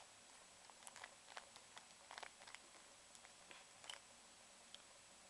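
Plastic Rubik's Cube layers being turned by hand: quiet, irregular clicks and clacks in quick bunches, thinning out near the end.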